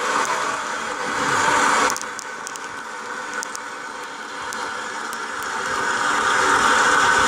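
Crowd applause from a television broadcast, an even clapping noise that dips about two seconds in and swells again from about five seconds on.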